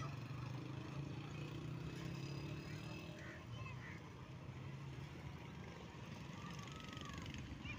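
Small motorcycle engines running as the bikes pass close by; the first hum fades after about three seconds, and another motorcycle comes through near the end.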